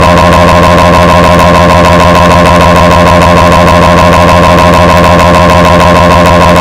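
Extremely loud, distorted electronic buzzing tone holding one steady pitch, harsh and clipped at full volume.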